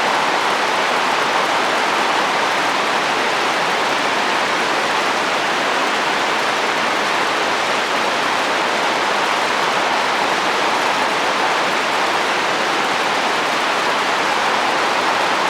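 Steady rain falling on a roof: an even, unbroken hiss.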